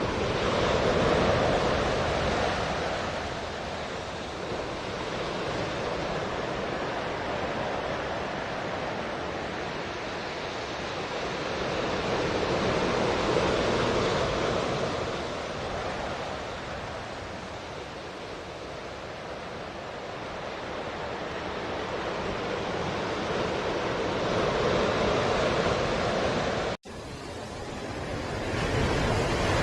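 Ocean surf: waves washing in, the rushing swelling and fading about every twelve seconds. It breaks off for an instant about 27 seconds in, then resumes.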